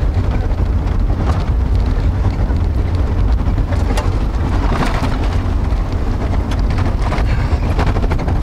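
Steady low rumble of a vehicle driving on a rough road, heard from inside the car, with scattered ticks of raindrops hitting it.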